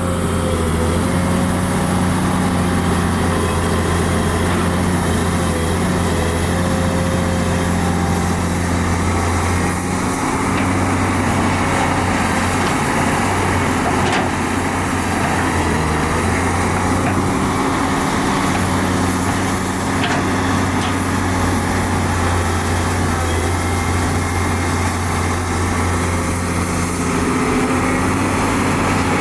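Heavy diesel engine of construction machinery running steadily under load, with a few faint knocks.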